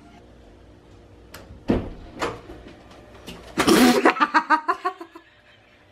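Two thumps at a doorway, then a woman's loud, startled burst of laughter in quick pulses lasting about a second.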